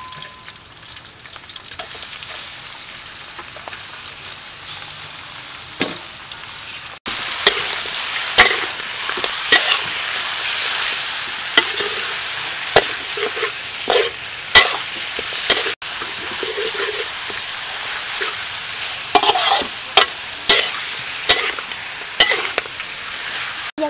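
Chopped duck and vegetables sizzling as they fry in a large steel wok, with a metal spatula scraping and clicking against the wok as they are stirred. The sizzle is quieter for the first several seconds and louder from about seven seconds in.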